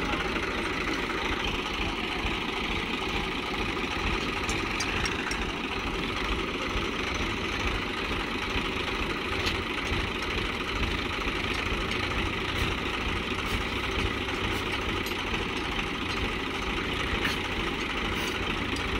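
Farm tractor diesel engines idling steadily, with no revving.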